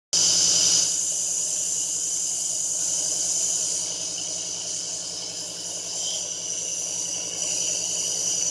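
A small motor running steadily with a high hiss and a low hum.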